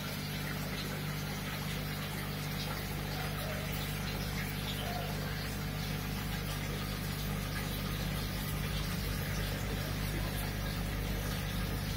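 Steady low hum of aquarium equipment (pump or air pump) running, with a constant wash of bubbling water.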